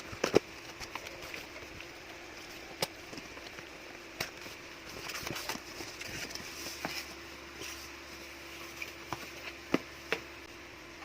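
Short, sharp clicks and knocks at irregular intervals, about a dozen in all, over a faint steady hiss: objects being handled and set down.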